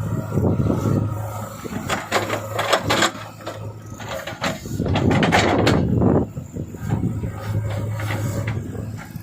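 Heavy diesel machinery running with a steady low hum, overlaid by irregular clanking and knocking, louder for a few moments about two and five seconds in.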